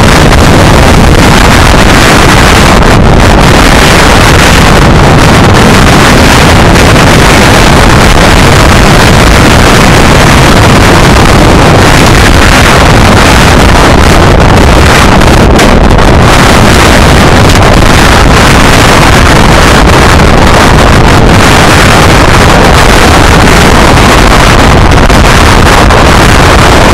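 Strong wind buffeting the camera microphone: a loud, steady roar of noise with no break.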